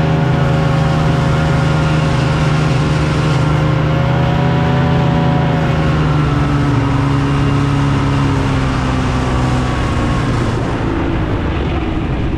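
A motor running steadily, its pitch drifting slightly up and down.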